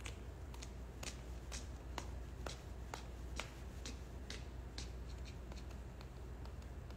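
A run of light, sharp clicks at about two a second, fading to fainter, quicker ticks after about five seconds.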